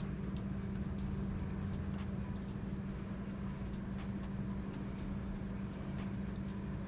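Steady low background hum with a constant low tone, and a few faint light ticks scattered through it.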